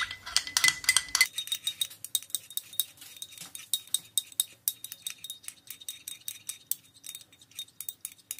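Metal spoon stirring a liquid marinade in a ceramic cup, clinking against the cup's sides in many quick, irregular taps.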